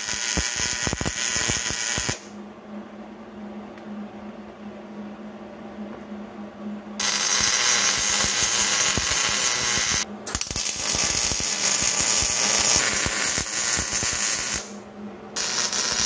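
MIG welder arc crackling and sizzling as steel engine-mount pieces are welded, in several runs. It stops about two seconds in for a quieter stretch with a low hum, starts again about seven seconds in, and breaks off briefly about ten seconds in and again near the end.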